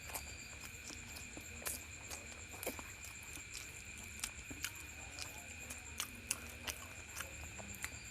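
Close-up eating sounds: irregular wet mouth clicks and smacks of someone chewing food.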